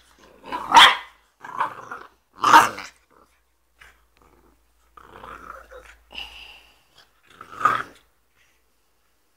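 Brindle boxer puppy growling and barking: a few loud barks about a second apart, softer growls, and one more bark near the end.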